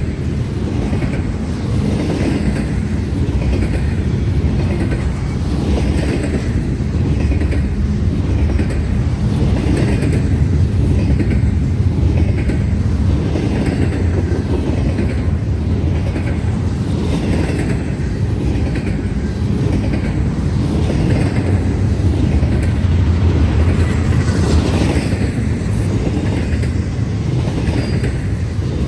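Intermodal freight train rolling past: a steady heavy rumble of steel wheels on rail, with a regular clickety-clack as the wheel sets cross rail joints.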